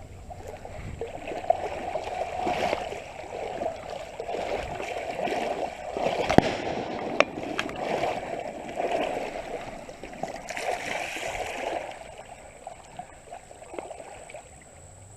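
Water sloshing and gurgling in uneven surges, with a couple of sharp knocks about halfway through.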